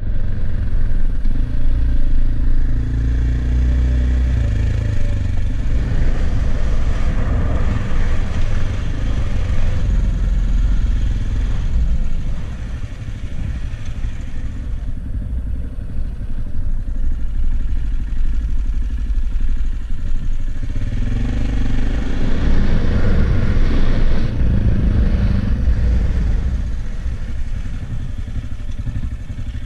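An AJP PR7's single-cylinder engine running at road speed, heard from the bike itself under a heavy, steady low rumble of wind and road noise.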